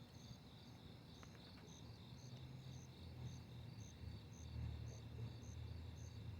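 Crickets chirping: one chirping steadily about twice a second over a continuous, faster trill of other insects. A low rumble of distant road traffic rises under them in the second half.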